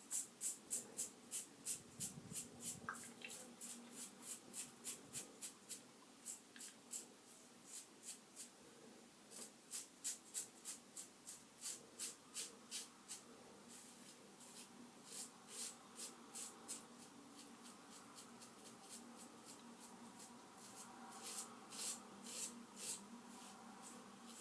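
Short strokes of a Hydra x6 3D-printed nylon safety razor, set to level 4, scraping through stubble, about three a second, in runs broken by short pauses.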